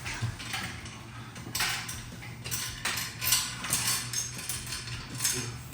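Metal bike parts and tools clinking and clattering as they are handled, in a run of short, irregular knocks and rattles.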